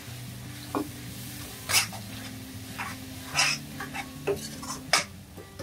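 Steel ladle stirring masala in a stainless steel kadai, scraping and clinking against the pan several times as the tomato masala is fried down (bhuna).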